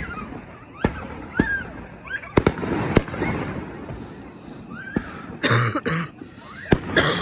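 Fireworks going off: a string of sharp bangs, several in quick succession in the first three seconds and two more near the end, with a spell of hiss after the bursts between about two and four seconds in.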